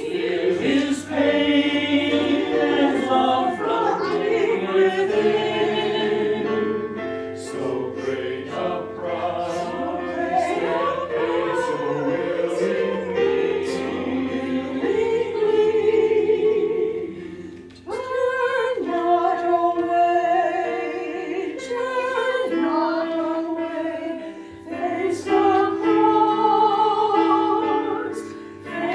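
Mixed church choir of men and women singing an anthem, several voices holding notes together, with short breaks between phrases.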